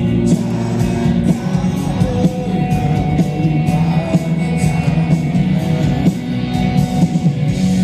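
A rock band playing live over a large PA system: drums keeping a steady beat under sustained electric guitar chords, with a male singer singing.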